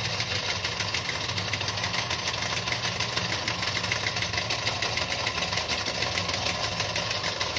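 Wilesco toy live-steam engine running steadily with a fast, even mechanical beat, fired by solid-fuel tablets and driving the workshop's belts and line shaft.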